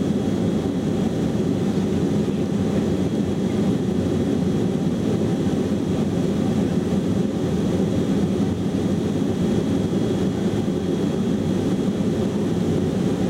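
Steady cabin noise of a Boeing 707-300 climbing after takeoff, heard from the rear of the cabin: the deep, even sound of its four Pratt & Whitney JT3D turbofans and the rushing air, with a faint steady high whine over it.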